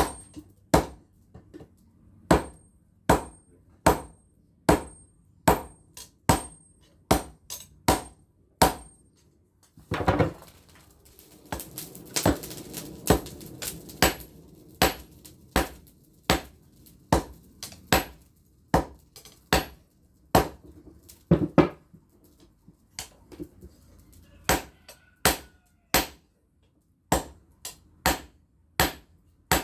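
Hand hammer forging a red-hot steel blade on an anvil: sharp, regular blows a little over one a second, each ringing briefly at first. Around the middle there is a noisier stretch of denser knocking before the steady blows resume.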